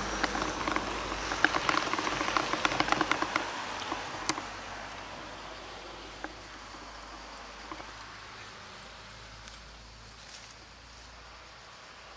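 Bicycle tyres rolling over loose gravel, with dense crackling crunches as the bike slows. The crunching dies away after about four seconds when the bike stops, leaving faint outdoor noise with a few scattered clicks.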